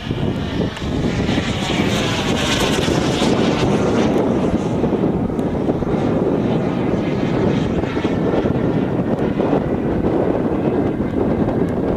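JetCat turbine engine of a Feibao F-5E Tiger II radio-controlled model jet running in flight, a steady jet noise with a sweeping, phasing quality in the first few seconds as it passes.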